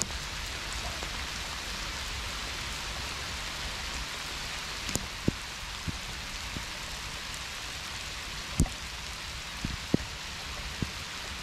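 Heavy rain squall falling steadily, an even hiss, with a few louder single drop impacts in the second half.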